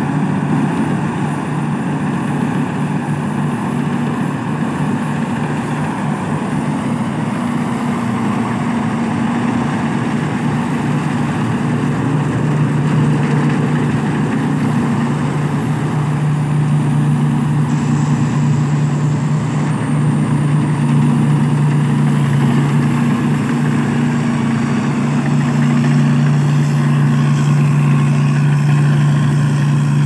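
Thai Seng rice combine harvester running steadily while cutting and threshing rice: a constant engine drone with the whir of the threshing machinery. It gets a little louder from about halfway through as it passes close.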